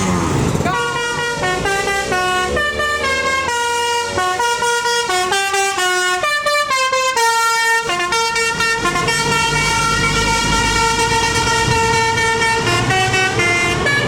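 Bus telolet horn, a multi-tone air horn, playing a tune of short stepped notes, then holding one long note, then a quick run of short notes near the end. A bus engine runs low underneath.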